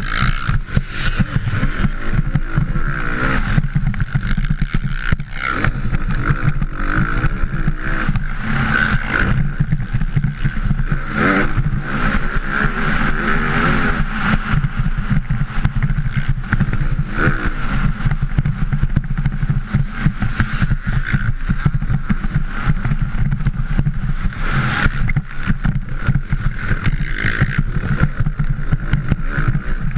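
Motocross bike engine heard from a helmet-mounted camera as the rider races, revs rising and falling through the corners and straights.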